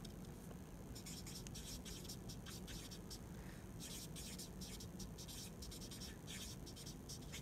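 Felt-tip whiteboard marker writing: faint, scratchy strokes of the tip in quick runs, with short pauses between words.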